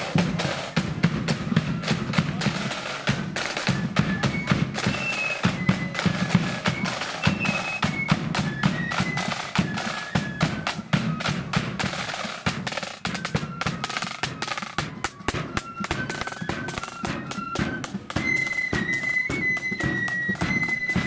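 Marching flute band playing: a flute melody over rapid snare drumming and a bass drum beat. Near the end the flutes hold long high notes.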